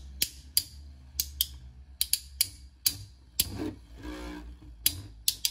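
Two metal-wheel Beyblade spinning tops, Fang Leone and Proto Nemesis, battling in a plastic stadium: sharp irregular clacks as the tops strike each other and the stadium, two or three a second, with a short buzzing scrape about three and a half seconds in.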